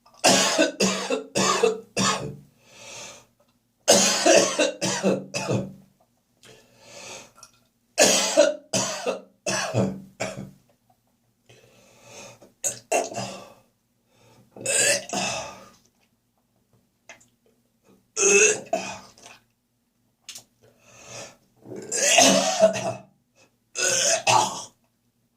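A person coughing heavily in repeated fits, about eight bouts of several rapid coughs each, separated by short pauses.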